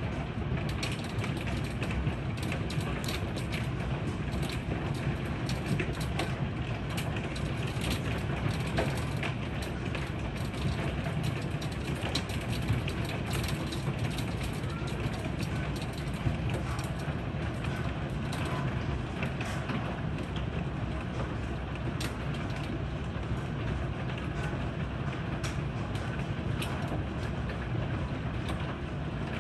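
Hail and heavy rain pelting a wooden deck: a dense, steady downpour with many sharp ticks of hailstones striking the boards and railing.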